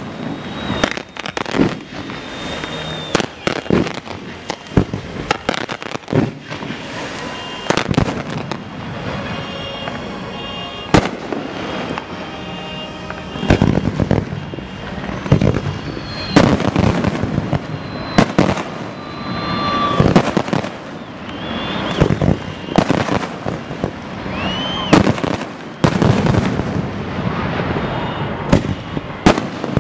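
Aerial fireworks display: shells bursting in quick, irregular succession, giving sharp bangs and crackles that come in dense clusters, with a few short whistles among them.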